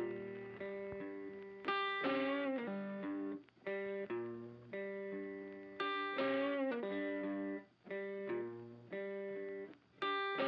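Background music: a guitar-led instrumental track playing a repeating pattern of plucked, lightly distorted notes.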